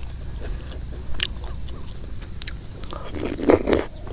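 Close-miked eating: a few crisp crunching clicks while chewing crunchy puffball mushrooms (hed phao) in curry, then, about three seconds in, a louder mouthful taken from the spoon.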